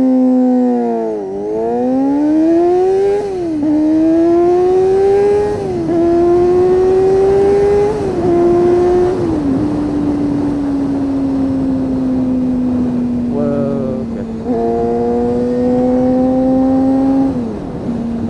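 A 1992 Honda CBR250RR's 250 cc inline-four, breathing through an aftermarket Musarri exhaust, accelerating up through the gears. The pitch climbs and drops back at each of five quick upshifts in about ten seconds, then the engine settles into a steady, slowly falling note while cruising.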